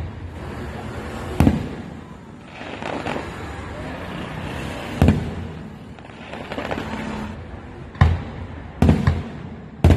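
Aerial firework shells bursting: five sharp bangs spaced a few seconds apart, the last three coming in quicker succession near the end, over a constant background of noise.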